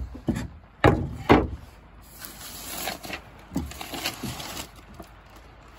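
Loose plywood floor boards over attic joists knocked several times, then scraped across the wood with a couple of softer thumps.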